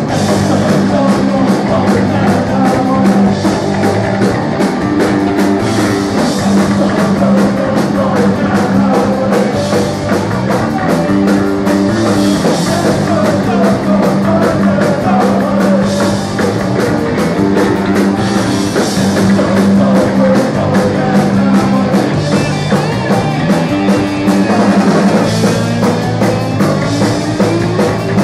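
A live punk rock band playing loudly: distorted electric guitar, electric bass and a drum kit keeping a steady beat, with a voice singing over them.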